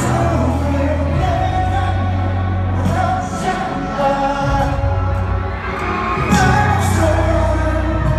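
Male singer performing a pop/R&B solo live into a microphone over a backing track with long-held deep bass notes, heard through a stadium PA system.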